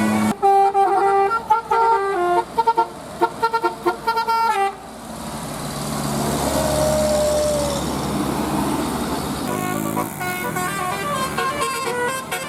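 Bus 'telolet basuri' multi-tone horn playing a quick tune of short notes stepping up and down for about four and a half seconds. Then comes the rushing noise of a passing vehicle, swelling and fading. The horn tune starts again near the end.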